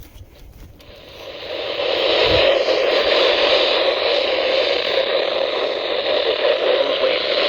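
A weather radio receiver putting out static hiss with no tone in it. The hiss swells in after about a second of near quiet, then holds steady.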